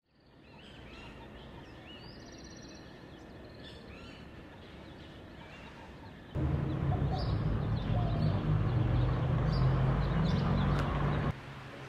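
Outdoor ambience fading in, with birds chirping and calling over a quiet hiss. A little over six seconds in it cuts to a much louder, steady low rumble with a dense hiss, which cuts off suddenly near the end.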